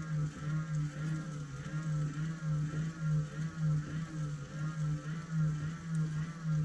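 Hand-cranked DC motor run as a generator, whirring with a steady hum that wavers in pitch about twice a second with each turn of the crank, while it charges a phone through a USB charger.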